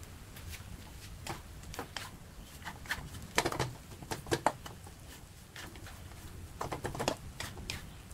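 Wooden spatula stirring and tossing instant noodles in a wok: irregular scrapes and knocks against the pan, loudest in clusters about three and a half seconds in and again near seven seconds.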